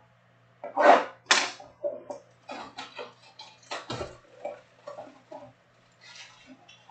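Clear plastic shrink-wrap being torn and crinkled off a trading-card box, a run of sharp irregular crackles and rustles, loudest about a second in.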